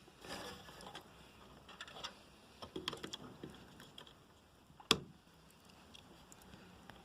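Light taps, scrapes and clicks of small computer hardware being handled during an M.2 SSD install, with one sharp click about five seconds in.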